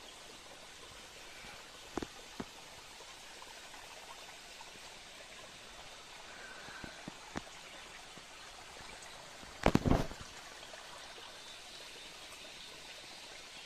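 Steady low hiss of trickling water. A few sharp clicks through it, and a short cluster of louder knocks about ten seconds in.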